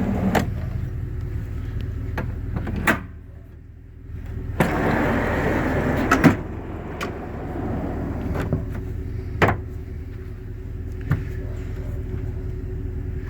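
Truck bed storage drawers sliding out and back on their runners, with several sharp knocks as they stop at the ends of travel, over a steady low hum.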